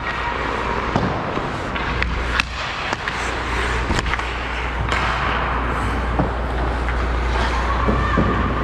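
Ice hockey skates carving and scraping on the ice in strides, with several sharp clacks of stick and puck at intervals.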